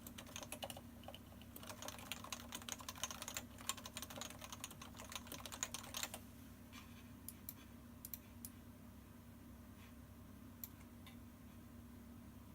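Typing on a Topre electrostatic capacitive keyboard (Realforce 104U, 45 g switches, PBT keycaps): quick continuous keystrokes for about six seconds, then only a few scattered key presses.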